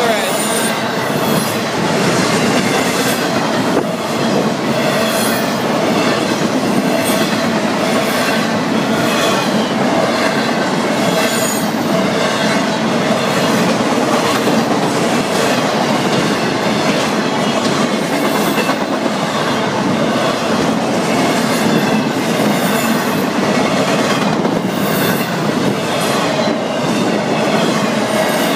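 Intermodal freight cars of a Florida East Coast Railway train rolling steadily past: a loud continuous rumble of steel wheels on rail with irregular clicking and clattering over the rail joints, and a faint steady high tone over it.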